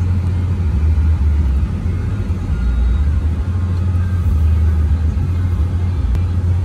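Steady low rumble of a vehicle's engine and tyres rolling slowly over a dirt road, heard from inside the cabin.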